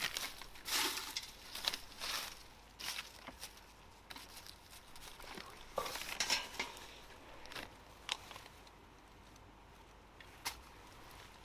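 Dry fallen leaves and twigs rustling and crackling in irregular bursts as they are handled and packed into a planter, with a quieter stretch near the end broken by one sharp crackle.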